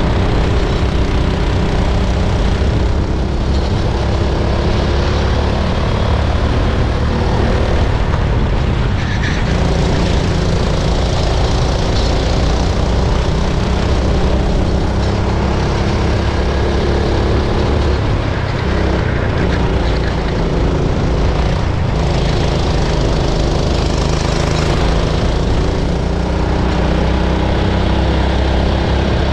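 Racing kart engine heard onboard, running hard under load, its pitch climbing and falling repeatedly as the driver accelerates out of corners and lifts going into them.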